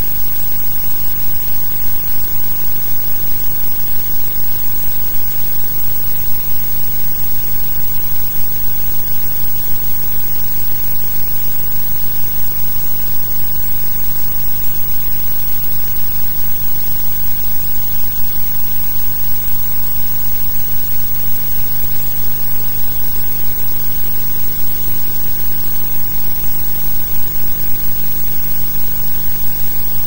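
Steady loud hiss with a buzzing electrical hum and no other sound: the noise of a silent archive film's blank soundtrack.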